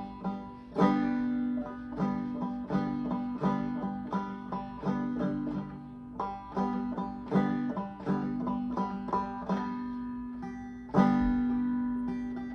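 Banjo played clawhammer style: a steady run of plucked and brushed strokes with ringing open-string notes, a rhythm-practice pattern. The strokes thin out about ten seconds in, then a loud strum comes near the end.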